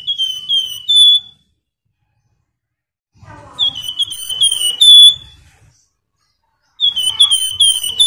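Caged flamboyan songbird singing in three short bursts: each a quick run of four to six loud, repeated down-slurred whistles ending on a held note, with pauses of about two seconds between bursts.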